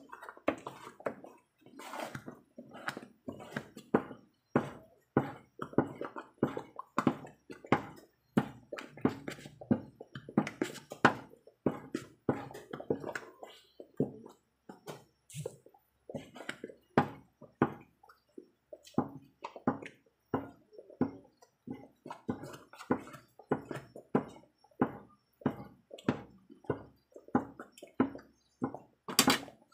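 Thick ube halaya (mashed purple yam) paste being stirred in a pan, squelching wetly in repeated soft strokes about twice a second.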